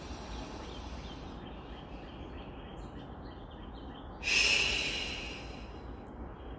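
A woman's slow yoga breathing: a quiet inhale through the nose, then, about four seconds in, a loud breathy exhale through the lips that fades away over a second or two.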